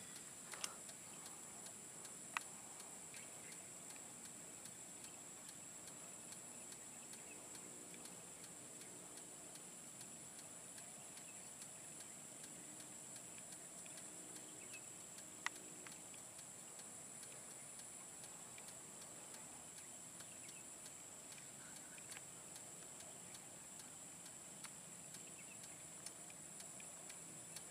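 Faint steady high-pitched insect chorus at dusk, with a faint, evenly spaced ticking underneath and a few isolated sharp clicks.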